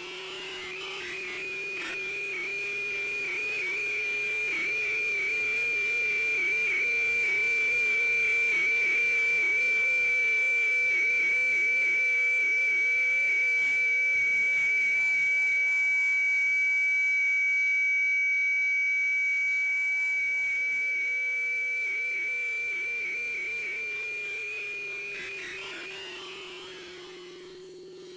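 Tinnitus-masking sound: several steady electronic tones layered together over a faint hiss. There is a very high whistle-like tone, a mid-high tone and a lower tone that wavers, rising slightly in the middle and settling back near the end.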